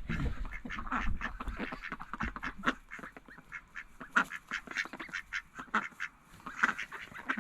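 A flock of ducks quacking, many short calls overlapping in an irregular chatter as they crowd round to be fed.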